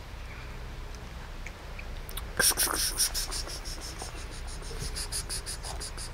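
Cats chewing food from a plastic tub: a quick run of wet chewing clicks, about five a second, starting a couple of seconds in and loudest at the start.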